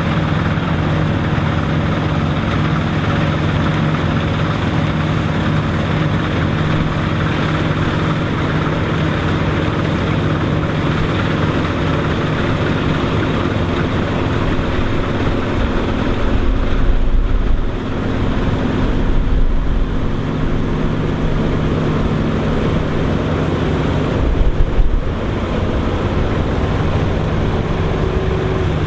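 Dronningborg D900 self-propelled combine harvester running steadily under harvesting load, its engine drone and threshing machinery holding an even note. Three short low rumbles, like wind buffeting the microphone, come a little past halfway, shortly after, and again later.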